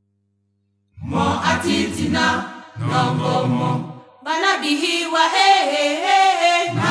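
Cameroonian choir singing a religious song in short phrases, coming in about a second in after silence. Midway the low voices drop out and the higher voices carry a sustained line alone, and the full choir comes back in near the end.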